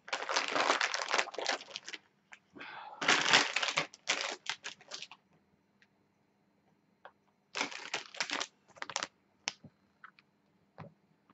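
Crinkling and crackling of a plastic anti-static bag being torn open and handled, in three bursts, with a few light clicks near the end.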